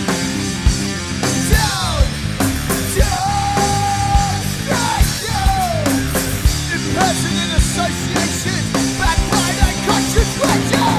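Heavy rock music: a band playing with steady pounding drum hits under dense guitars, and sliding high notes over the top, one held for about a second around three seconds in.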